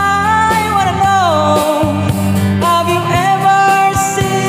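Rock music backing track with a man singing along, holding long notes that slide downward in the first second or so before settling on another long held note.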